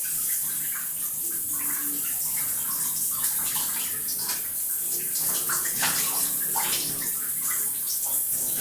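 Shower water running into a bathtub: a steady rushing hiss with irregular splashes throughout.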